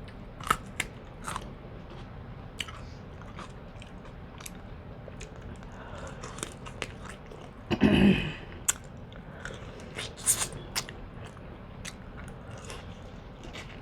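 Close-miked eating sounds: biting and chewing lobster meat scraped from the shell with the teeth, with scattered clicks and small crunches and one louder mouth sound about eight seconds in.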